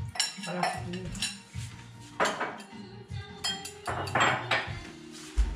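Cutlery clinking and scraping against plates and bowls during a meal: a run of light taps and clinks, some with a short high ring, busiest about two and four seconds in.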